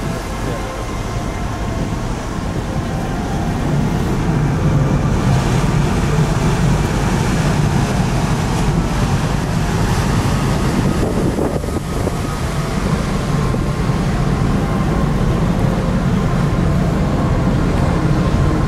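Steady low rumble of ship engines with rushing water and wind on the microphone, a little louder from about four seconds in.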